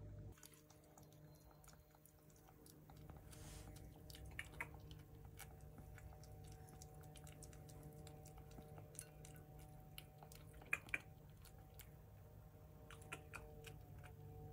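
Faint, irregular small clicks and smacking ticks over a steady low hum, with two sharper clicks about three-quarters of the way through.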